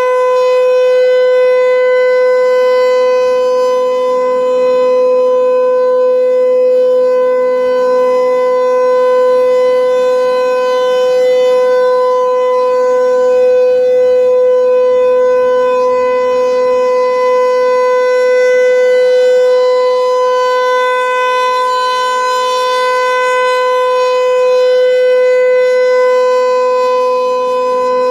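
Federal Signal 508 electromechanical rotating siren sounding its steady alert signal: one loud, unbroken, high tone held at a constant pitch. The volume swells and fades gently as the rotating horn sweeps around.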